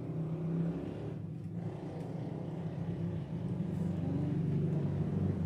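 A motor or engine running with a steady low hum that grows slowly louder toward the end.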